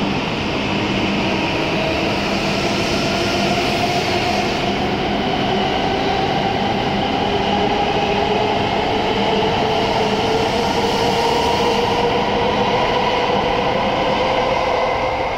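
E7-series Shinkansen train pulling out of the station and gathering speed. Its traction motors give a whine that rises steadily in pitch over a continuous rolling rumble of the passing cars.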